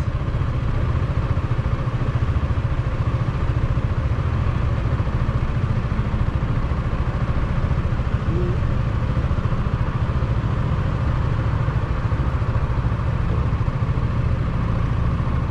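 Motorcycle engine idling steadily while the bike stands stopped.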